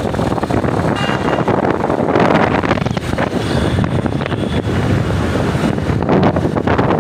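Wind rushing over the microphone of a camera filmed from a moving motorbike, a steady rush with road and engine rumble underneath.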